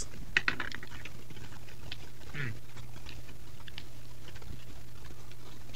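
Red deer stags sparring, their antlers clicking and rattling together in a few sharp knocks about half a second in, then scattered lighter clicks, over a steady low hum.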